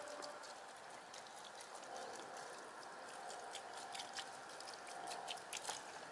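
Water poured from a plastic bottle, trickling and pattering onto a carp lying in a padded unhooking cradle to wet it, with many small splashes and drips.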